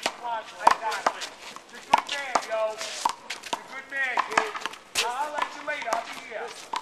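Rubber handball struck by hand and smacking off a concrete wall during a rally: a run of sharp, irregular smacks.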